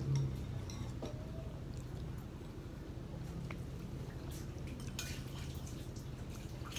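Eating sounds: a metal spoon tapping in a bowl of noodle soup with a few short clicks and soft liquid sounds, the busiest just past the middle, over a steady low hum.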